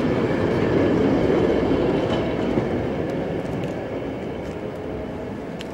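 Metre-gauge tram hauling a goods wagon rolling past close by on street track, its wheel rumble loudest at first and fading steadily as it moves away.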